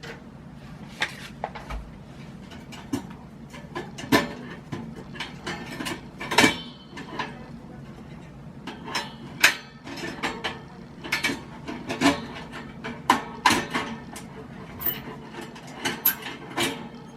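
Irregular sharp clicks and knocks, with some rubbing, as packaging plastic and parts are handled and unfastened during unboxing.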